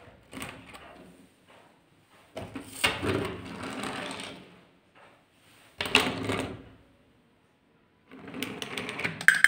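Small plastic toy airplane and toy car run along a wooden table, their geared wheel motors whirring and rattling in several short spurts. There are sharp clicks about six seconds in and a longer clattering run near the end.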